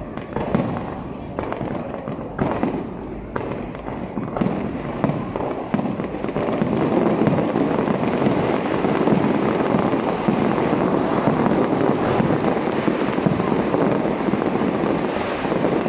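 Aerial fireworks bursting. Separate bangs come for the first few seconds, then about six seconds in the bursts run together into a louder, dense, continuous crackle.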